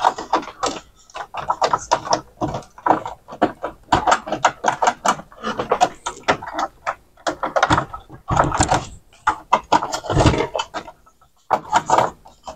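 Hands handling plastic parts, wires and flat ribbon cables inside an opened CD changer: a busy run of irregular clicks, rattles and rustling, with a heavier knock about ten seconds in.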